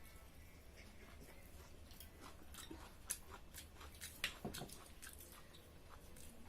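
Faint eating sounds: chewing with scattered small clicks and crunches, the two sharpest a little after three seconds and a little after four seconds in.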